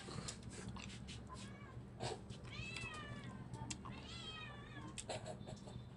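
A cat meowing twice, two short rising-and-falling calls in the middle, among the wet clicks and smacks of someone eating with their fingers.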